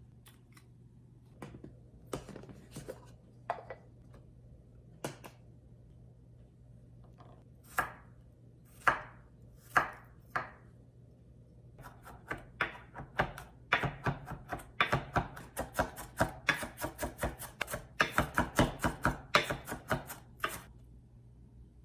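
Chef's knife chopping garlic and onion on a wooden cutting board. A few scattered knocks and separate cuts come first, then a fast, even run of chops at about four strokes a second that stops shortly before the end.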